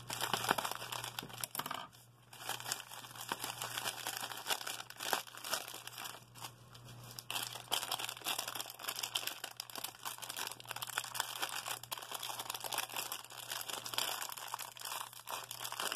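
Thin plastic packaging crinkling and rustling as hands cut and pull it open: bubble wrap cut with scissors at first, then a clear cellophane bag worked at. There are short lulls about two seconds in and again around six to seven seconds.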